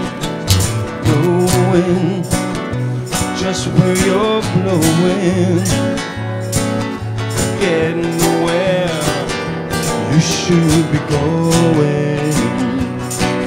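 Live acoustic music: two guitars strummed and picked together, with a man singing.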